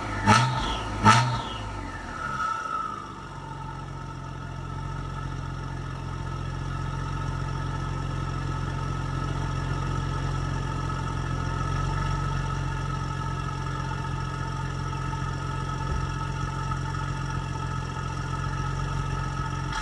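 Audi B5 S4's 2.7-litre twin-turbo V6, breathing through catless downpipes shortly after a cold start: two quick throttle blips in the first second, the revs falling back over the next couple of seconds, then a steady idle.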